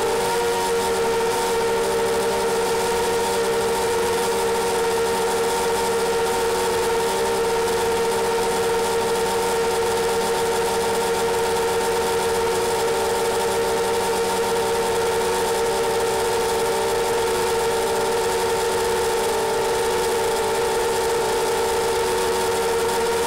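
iFlight XL7 quadcopter's brushless motors and propellers whining at a steady pitch over a constant hiss, as heard by its onboard camera.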